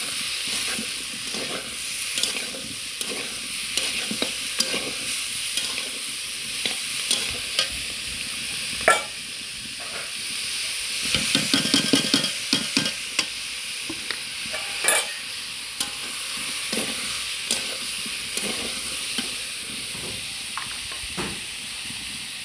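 Cauliflower and fried potato pieces sizzling in hot oil in a karahi while a metal spatula scrapes and stirs them against the pan. A few sharper knocks of the spatula on the pan stand out, about nine and fifteen seconds in.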